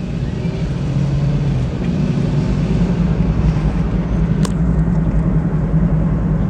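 2007 Chrysler Sebring's worn front wheel bearing roaring during a slow drive at about 15 to 20 mph, a steady low drone that sounds pretty bad. One sharp click comes about four and a half seconds in.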